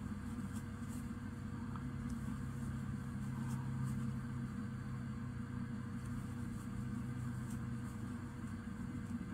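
Steady low hum in a quiet room, from an appliance or ventilation with a faint steady tone in it. A few faint soft ticks come from a crochet hook and yarn being worked through stitches.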